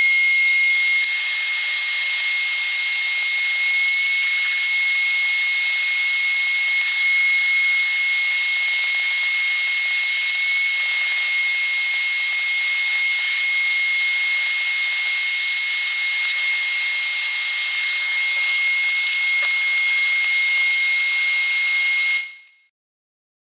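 Vacuum cleaner running steadily, a single high whine over a loud hiss, pulling residue off a surface; it is switched off near the end and dies away quickly.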